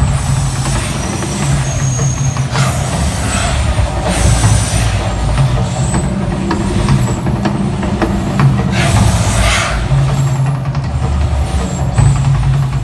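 Mirage volcano show erupting: a deep, steady rumble with loud hissing whooshes every few seconds as its gas-fire jets burst.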